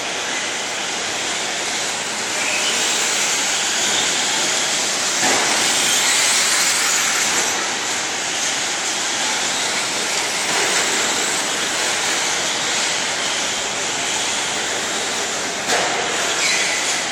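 Radio-controlled 4x4 short course trucks racing on a dirt track: a steady high hiss of motors and tyres with now and then a faint rising whine, heard inside a large arena.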